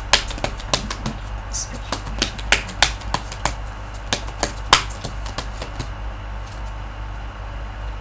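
A deck of tarot cards being shuffled by hand: quick, irregular clicks and flicks of the cards, thick for the first five seconds or so, then thinning out.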